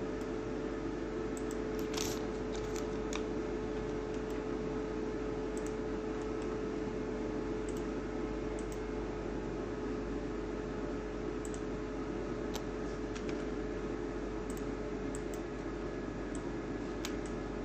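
Steady electrical hum with a constant low tone, and a few faint, scattered computer mouse clicks.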